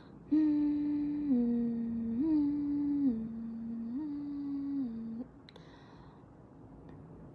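A woman humming with closed lips, swinging back and forth between a higher and a lower note three times for about five seconds, then stopping.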